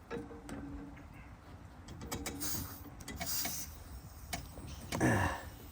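Tire pump inflating a garden cart tire's inner tube: short bursts of air hissing, some of it leaking at a poorly held valve stem, among clicks and knocks of the pump and chuck.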